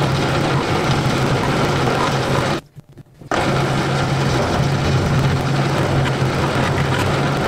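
Benchtop drill press running steadily with a small bit boring into a wooden handle. The sound cuts off abruptly for under a second about two and a half seconds in, then carries on.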